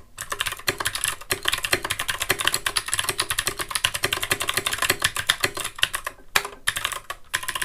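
Anne Pro 2 60% mechanical keyboard being typed on fast: a dense, continuous clatter of key clicks, with a couple of brief pauses about six seconds in.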